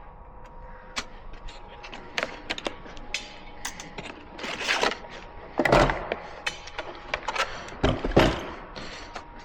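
Handling noise: scattered clicks and knocks with three short, louder rubbing or scraping sounds in the second half, over a faint steady hum.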